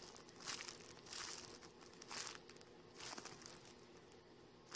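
Clear plastic wrapping around a foam squishy crinkling faintly as hands squeeze it, in about four separate bursts.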